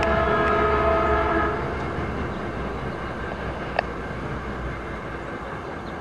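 A Metrolink commuter train's horn holds a chord of several notes over the train's low rumble and cuts off about a second and a half in. The train noise then fades as it pulls away, with a single sharp click near the middle.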